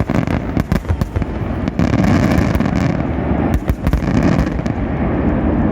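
Fireworks going off in a rapid barrage: many sharp bangs and crackles over a continuous rumble.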